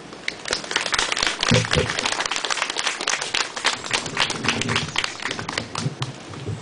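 Small crowd of guests clapping, the individual claps distinct. It starts about half a second in and thins out near the end.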